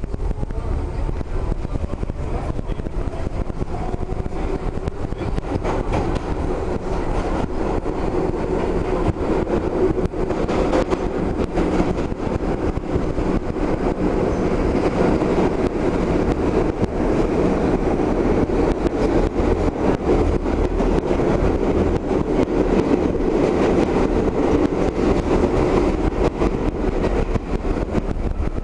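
Interior running noise of a New York City subway car on the IRT 1 line: a steady rumble with rattling and clatter from the wheels and car body. A motor whine rises in pitch over the first few seconds, and the noise grows louder as the ride goes on.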